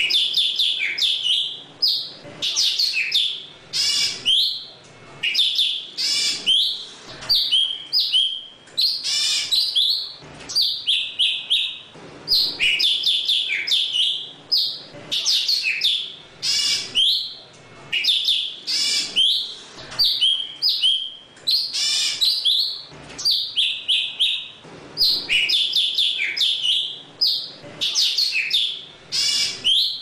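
Golden-fronted leafbird (thanh tước) singing to call its flock: a run of short phrases of quick, high, sliding notes, about one phrase a second with brief gaps between.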